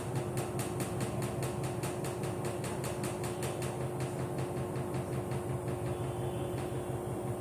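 Samsung front-load washing machine running: a steady motor hum and tone with a rapid regular ticking, about five ticks a second, that fades out about halfway through.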